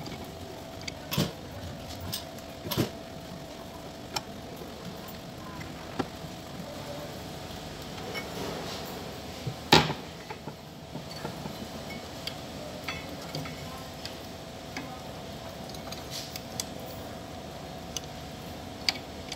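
Scattered clicks and light knocks of cables and connectors being handled inside the open metal chassis of an electrosurgical unit, over a steady hum. The sharpest knock comes near the middle.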